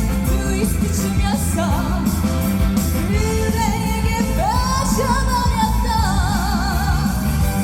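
Female trot singer singing live over a loud backing track with a steady beat and bass. The voice slides up into a long held note with a wide vibrato near the end.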